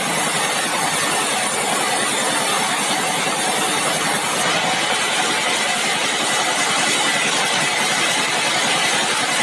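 Sawmill machinery running steadily: a loud, even mechanical din with a fast fine pulsing low down and no break.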